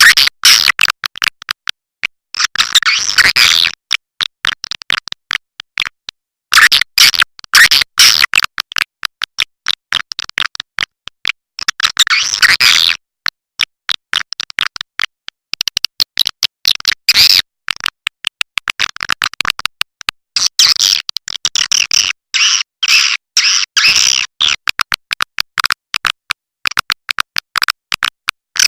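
Swiftlet calling track used to lure swiftlets into a nesting house: rapid, sharp clicks with bursts of high, chattering twitter every few seconds, each burst lasting one to three seconds.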